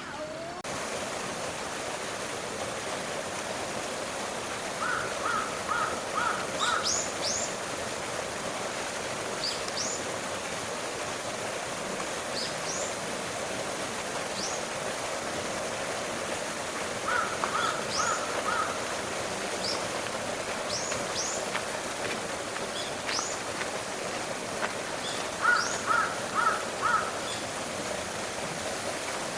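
Birds calling over a steady background rush. Three times there is a short run of four or five quick, even notes, and brief high rising chirps come scattered throughout.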